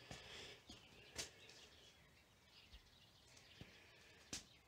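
Near silence: room tone, with a faint click about a second in and another near the end.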